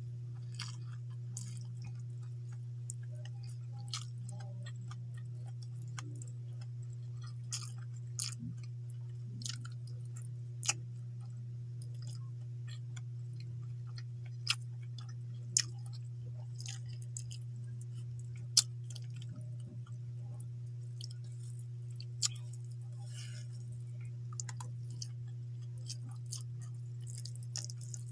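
Close-up chewing and mouth sounds of a person eating rice with fish and greens by hand, with irregular sharp clicks scattered through, over a steady low hum.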